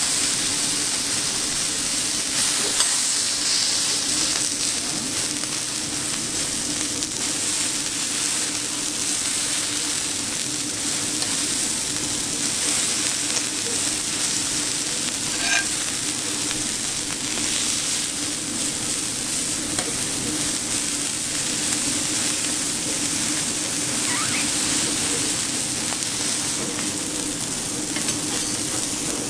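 Steak sizzling steadily on a hot teppanyaki steel griddle, with a few light taps and scrapes of metal spatulas and a knife against the plate.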